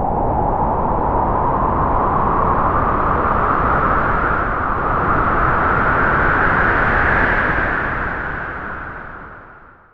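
A gust of wind: a rushing noise whose pitch creeps slowly upward, then dies away over the last two seconds.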